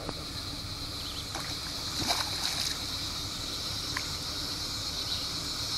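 Hooked fish thrashing at the surface of the pond, with a burst of splashes about two seconds in and a few smaller splashes, over a steady low rumble and a high hiss.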